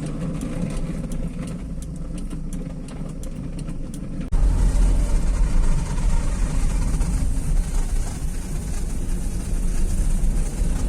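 Car driving, heard from inside: steady engine and road noise with faint ticking. About four seconds in, it jumps suddenly to a much louder low rumble with a hiss. The car's wheel-arch liner is unbolted and rubbing underneath.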